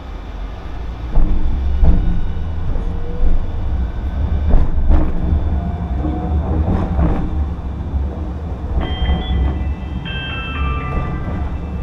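Hiroden streetcar pulling away and running along street track, heard from inside the car: a heavy low rumble that builds over the first second, with several sharp clanks from the wheels and track. Near the end come a few high, steady tones at stepping pitches.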